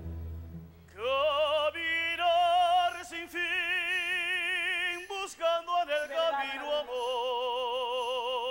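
An operatic voice singing in zarzuela style, entering about a second in and holding long, slow notes with strong vibrato across a few phrases.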